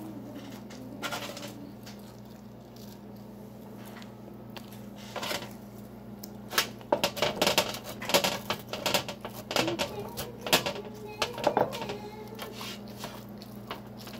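Metal fork clicking and scraping on a metal baking sheet as potato cubes are speared. The clicks come in a dense cluster through the middle and are the loudest sounds. A steady low electrical hum runs underneath.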